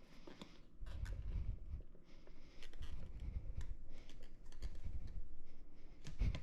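Hands working stiff rubber onto a Onewheel GT wheel rim, edging it around the metal rim: irregular low thumps and rubbing with scattered small clicks and scrapes.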